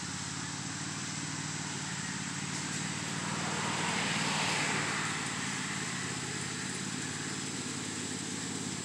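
Riding lawnmower engine running steadily at a distance, with a broad swell of noise about four seconds in.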